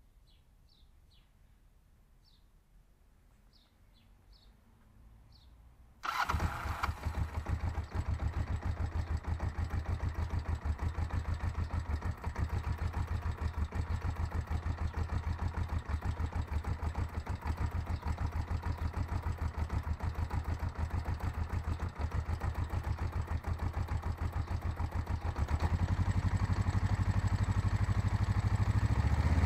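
Kawasaki GPZ500's parallel-twin engine starts after about six seconds of near-quiet with a few faint high chirps, then idles with an even pulse and gets louder near the end. The owner is trying to find the cause of a knock he places in the gearbox.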